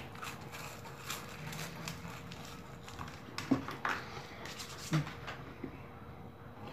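A person eating crackers in a hurry: chewing and mouth noises, with a few short sharp crunches or smacks about three and a half, four and five seconds in.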